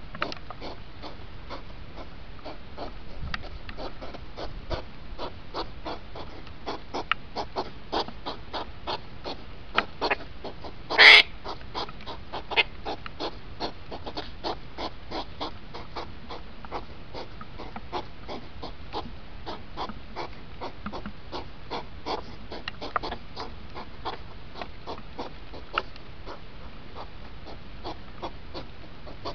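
Hedgehogs snorting and huffing in the rut, sped up into a rapid run of short puffs and clicks, several a second. One much louder, sharp call stands out about eleven seconds in.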